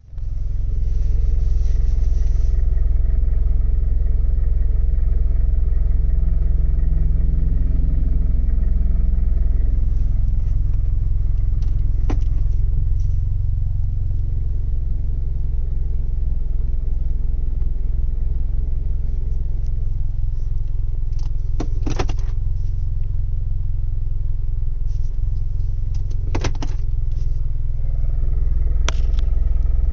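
2018 Chevrolet Camaro's 2.0-litre turbocharged four-cylinder engine running steadily, with an unidentified rattle that the owner is trying to diagnose. A few short sharp rattles stand out over the engine's hum, spread through the stretch.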